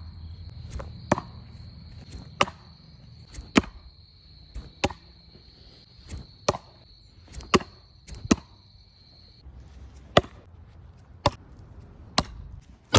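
Tomahawk blades striking wood with sharp thunks, about a dozen separate blows at roughly one a second.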